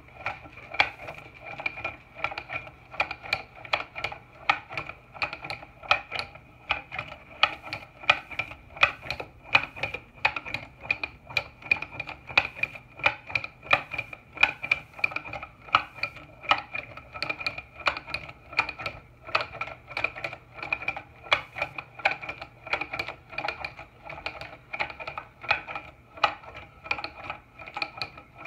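Carved wooden chicken automaton's mechanism clacking in a steady rhythm, about two to three wooden knocks a second, over a steady high tone.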